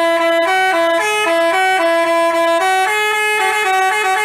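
Basuri-type telolet bus horn playing a tune: a run of clear horn notes changing every quarter to half second, two pitches sounding together, without a break.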